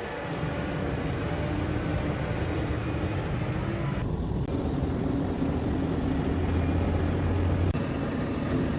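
A heavy excavator's diesel engine and machinery running steadily, with a deep hum and some held tones. The sound shifts abruptly about four seconds in and again near the end, where the footage cuts.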